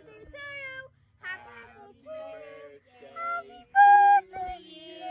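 Several voices, a child's among them, singing a tune together in held notes. One voice close by is much louder on a long note about four seconds in.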